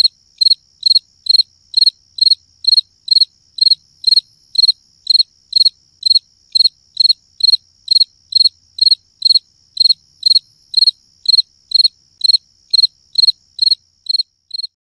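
Cricket-chirp sound effect: an even, unchanging chirp repeated about two and a half times a second, the comedy cue for an awkward, boring silence.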